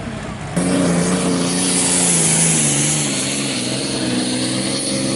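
A pulling vehicle's engine running at a steady speed with a strong high hiss over it, its pitch dipping slightly partway through. About half a second in the sound jumps abruptly from a quieter engine idle to this louder run.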